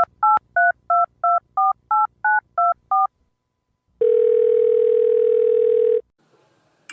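Touch-tone telephone keypad dialling ten digits, each a short two-tone beep at about three a second, then after a pause of about a second one two-second ringback tone as the call rings out.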